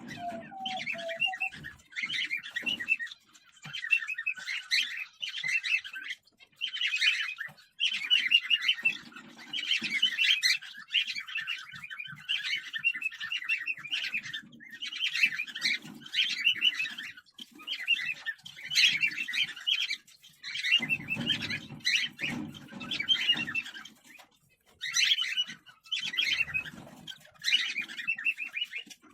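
Cockatiels chirping in rapid, repeated bouts of one to two seconds each, with short gaps between them.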